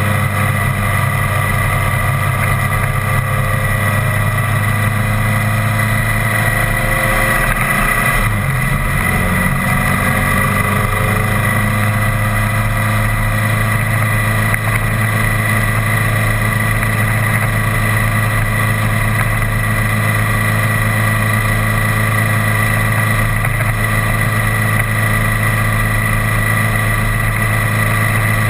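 Vehicle engine running steadily at road speed, heard from a camera mounted on the vehicle itself, with tyre and road noise beneath it. The engine note dips briefly about eight seconds in.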